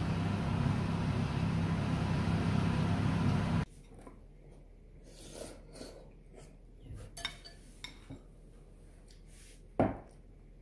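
A steady, loud rushing hum that cuts off suddenly about three and a half seconds in. Then a metal spoon scraping and clinking lightly against a ceramic bowl, with one sharp clink near the end.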